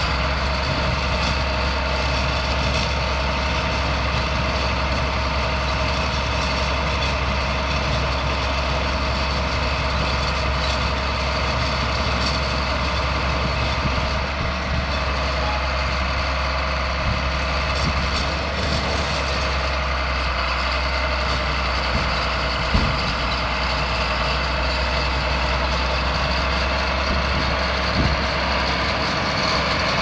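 John Deere 4055 tractor's six-cylinder turbo diesel running steadily under load, pulling a New Holland round baler along the windrow with the baler's mechanism working. A single short knock sounds about two-thirds of the way through.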